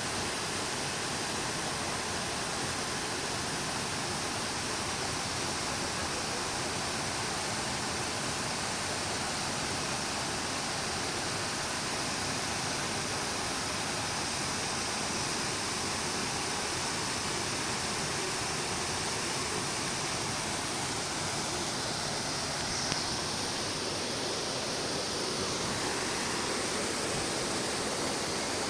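Steady, unbroken rushing of water, like a waterfall, with no other events.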